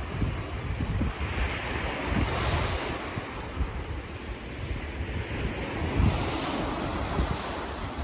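Small ocean waves breaking and washing up a sandy beach, the wash swelling twice, with wind buffeting the microphone as a gusty low rumble.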